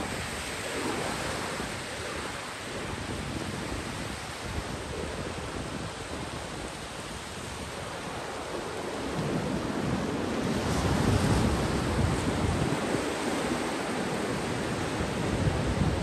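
Sea surf on a beach: waves breaking and washing in as a steady rush that swells about two-thirds of the way through. Low gusts of wind buffet the microphone.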